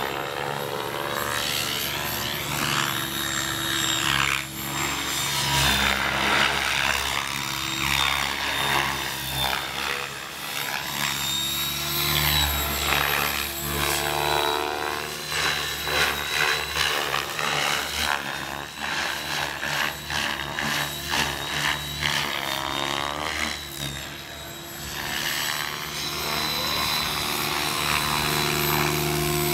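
Mikado Logo 600 electric RC helicopter flying manoeuvres: a steady high whine from the motor and drivetrain over the whoosh of the rotor blades, which rises and falls as the helicopter swoops and turns.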